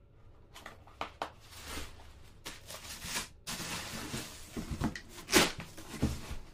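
Packing paper and plastic wrap rustling and crinkling as hands pull at them inside a large cardboard box. It comes as an irregular string of scrunches and scrapes, loudest about five seconds in.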